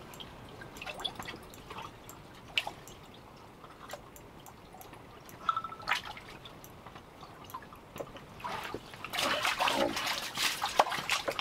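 Water splashing and dripping as a big whitefish is hauled up through the ice hole. About nine seconds in, louder wet slapping as the fish flops on the ice.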